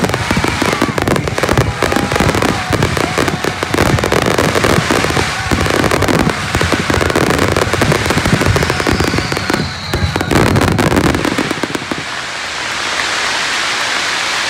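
Aerial firework shells going off in a dense, rapid barrage, with many overlapping bangs and booms and crackle. The barrage stops about eleven seconds in, leaving a steadier, even hiss.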